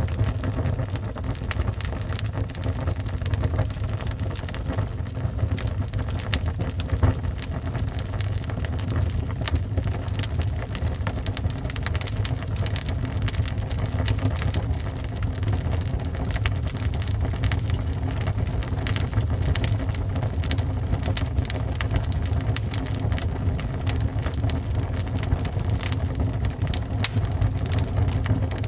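Wood fire burning in a fireplace: a steady low rumble with constant crackling and snapping, and one sharper pop about seven seconds in.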